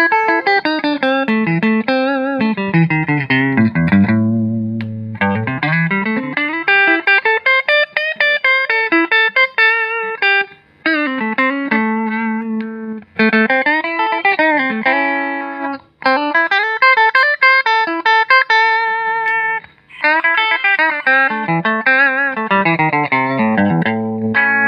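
Squier California Stratocaster-style electric guitar played with a clean tone. It plays melodic phrases of runs that climb and fall, with vibrato on some held notes and several brief pauses between phrases.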